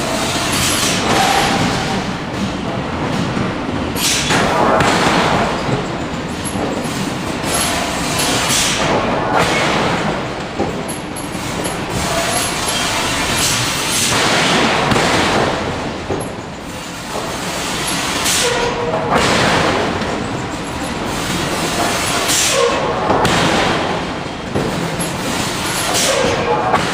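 Heavy industrial machinery noise in a forge shop: a steady loud rumble with surges of rushing hiss every few seconds and no clear hammer blows.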